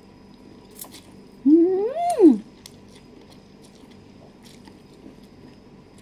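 A single drawn-out vocal sound about a second and a half in, rising in pitch and then falling away. Otherwise faint chewing and slurping clicks from eating noodles by hand.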